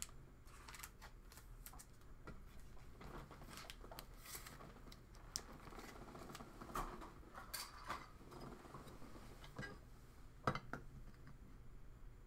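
Faint, scattered clicks, taps and crinkles of trading cards and plastic packaging being handled, with a sharper click about ten and a half seconds in.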